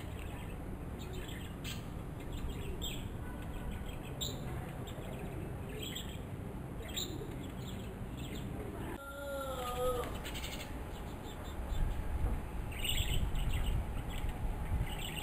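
Small birds chirping in short repeated calls over a low outdoor rumble. A brief wavering pitched call sounds about nine seconds in, and the low rumble grows louder over the last few seconds.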